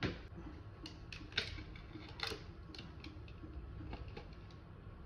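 Irregular small clicks and taps of smartphone parts being handled: a Vivo Y12's display assembly and frame picked up and brought together, over a faint low hum.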